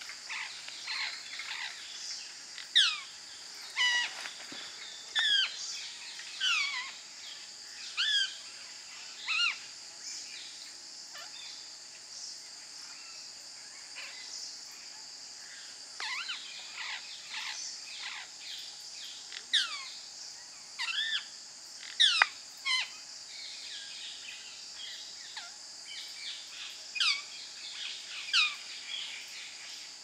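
Rose-ringed parakeet giving repeated short, shrill down-slurred calls, some of them loud, in bouts with pauses between, over a steady high insect drone.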